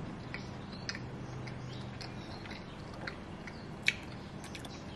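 A person chewing a bite of macaron with the mouth closed: soft, sparse mouth clicks and smacks, one sharper click near the end. A faint steady low hum runs underneath.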